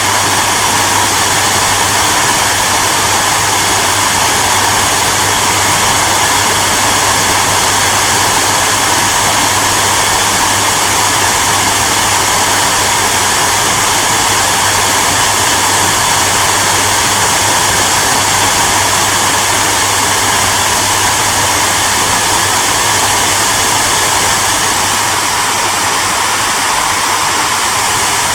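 Hair dryer running steadily: an even rush of blown air over a constant low motor hum.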